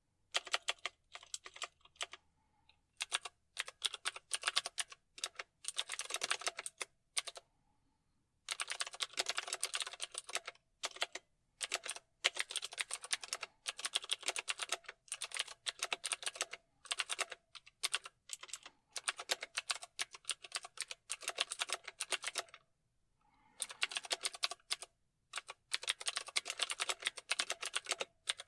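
Typing on a computer keyboard: rapid runs of key clicks in bursts of one to several seconds, broken by short pauses.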